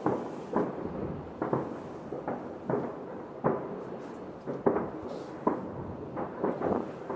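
Distant fireworks bursting over a city: an irregular run of bangs and pops, about one or two a second, each followed by a short echo.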